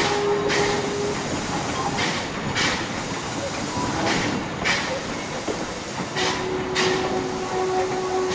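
Small steam tank locomotive hauling a short train slowly, with sharp noisy beats coming in pairs about every two seconds. A steady thin tone sets in about six seconds in.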